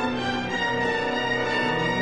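Orchestral music with sustained string notes, the chord shifting about half a second in.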